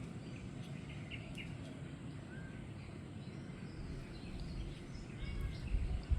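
Steady low outdoor background rumble with a few faint, short high chirps scattered through it.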